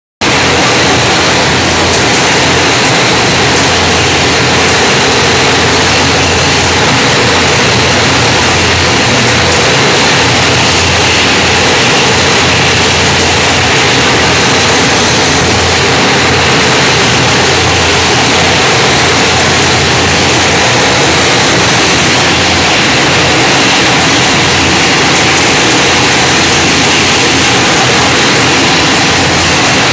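Rotary hot-fill juice bottling machine running at production speed: a steady, loud mechanical din with a strong hiss and a low hum underneath.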